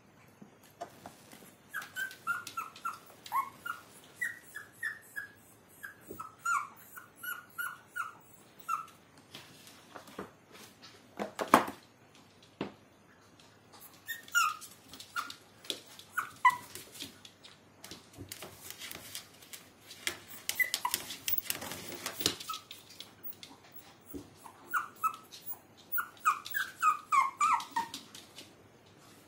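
Two Maltese puppies playing, giving short high-pitched cries in three clusters, with scuffling and sharp clicks and knocks as they tussle on a plastic tray and the floor.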